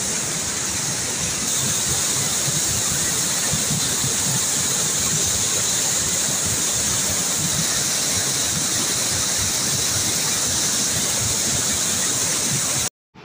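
Muddy flash-flood water surging down a walled stream channel in full spate, a steady rushing noise with no letup. It cuts off abruptly just before the end.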